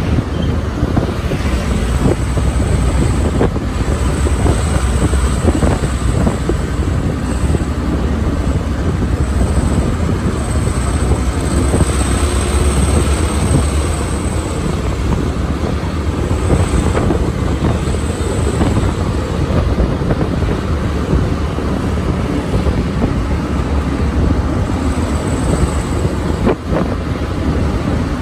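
Steady low rumble of vehicles driving on the road, engine and tyre noise, with wind buffeting the microphone.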